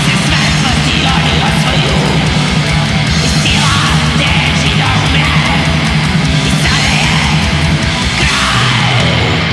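Heavy metal song at full intensity: dense distorted guitars over fast, continuous drumming.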